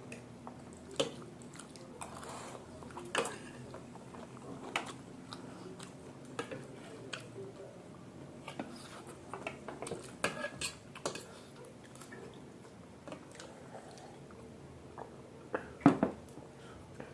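Close-miked eating of chow mein and momos: chewing, with scattered clicks of cutlery against a plate and one louder clatter near the end.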